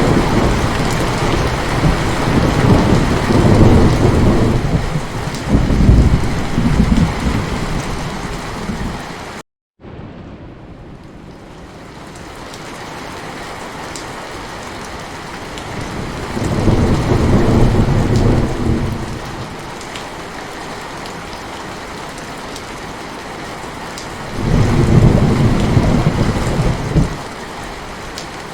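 Heavy rain falling steadily with rolls of thunder: a long deep rumble over the rain for the first third, a brief complete cut-out of the sound, then steady rain with two more thunder rolls, one past the middle and one near the end.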